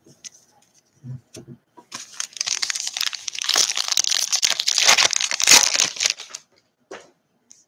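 Foil trading-card pack wrapper being torn open and crinkled: about four seconds of dense, crackling rustle.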